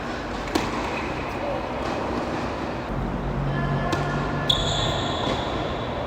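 Sharp knocks of a tennis ball being struck or bounced on a court, a few seconds apart, the loudest about four and a half seconds in, over a steady outdoor background.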